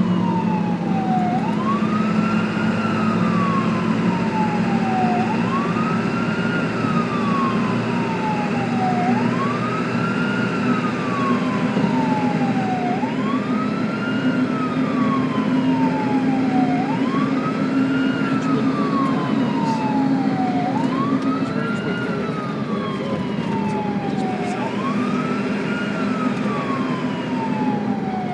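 Ambulance siren on a slow wail: each cycle rises quickly in pitch, then falls slowly, repeating about every four seconds. Under it runs a steady low rumble.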